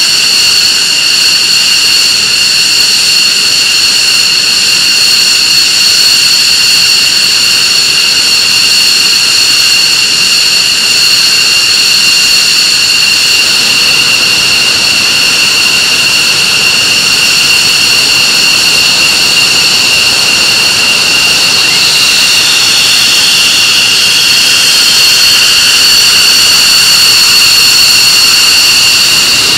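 F-15C Eagle turbofan jet engines running on the ground at idle: a loud, steady, high-pitched whine over a constant rush of jet noise. A second whine slides down in pitch about two-thirds of the way through.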